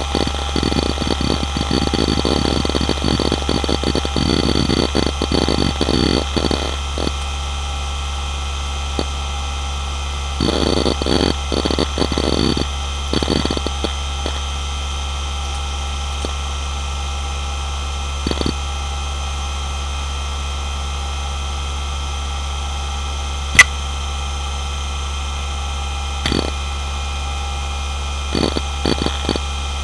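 A Hitachi DK228A-65 three-platter 2.5-inch hard drive spinning with a steady hum and high whine, its heads seeking in bursts of rapid chatter, busiest in the first several seconds and again a few seconds later, then in short spurts. About two-thirds of the way through there is a single sharp click, the loudest sound.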